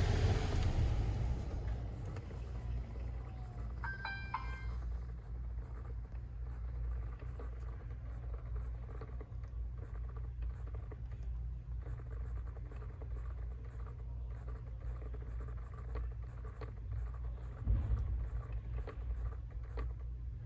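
Jeep Wrangler JL HVAC blend door actuator clicking repeatedly behind the passenger glove box, many small irregular clicks over a steady low rumble. A brief electronic chime sounds about 4 seconds in.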